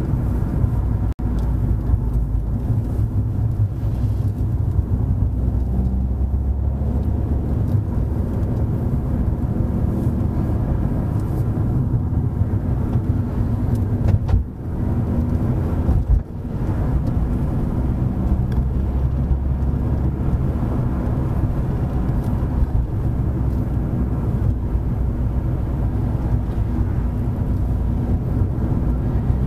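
Car being driven, its engine and tyres making a steady low rumble, with two brief dips in level about halfway through.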